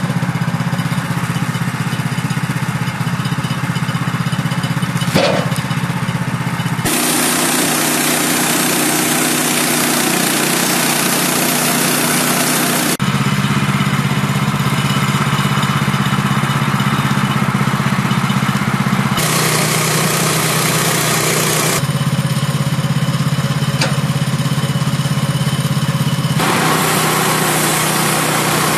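Engine running steadily across several edited clips, its tone and the noise around it changing abruptly at each cut.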